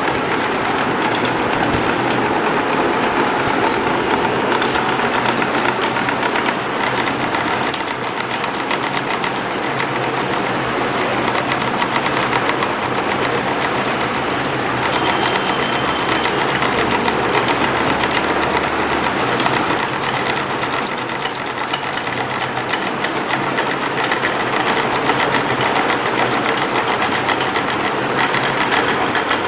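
Stepper motors and carriage of a DIY Arduino-driven tabletop CNC pen plotter, running under computer control as the pen traces a drawing. The motors make a continuous fast chattering buzz of rapid steps that swells and dips slightly as the moves change.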